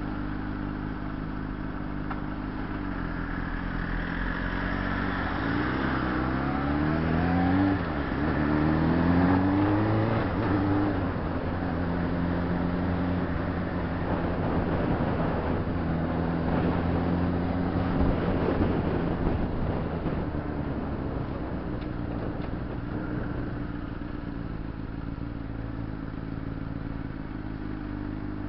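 Honda CBR600RR's inline-four engine idling, then pulling away: the pitch rises, drops at a gear change about eight seconds in, and rises again before settling into a steady run, easing back toward idle near the end.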